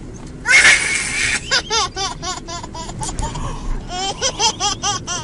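A baby laughing in repeated high-pitched bursts, about three to four "ha"s a second in two runs, after a loud burst of noise about half a second in.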